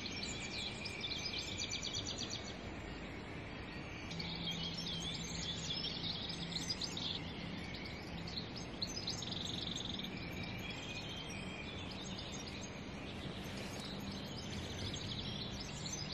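Many small birds chirping and singing together in a dawn chorus, with short trills and calls overlapping throughout, over a steady background hum.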